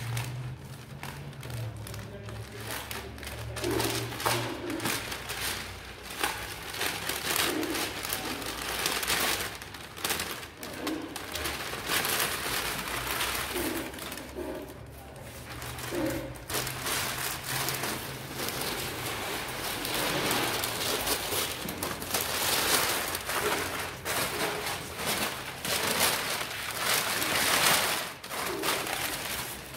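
Masking paper crinkling and rustling as it is pulled off a freshly painted car fender. Pigeons coo now and then in the background.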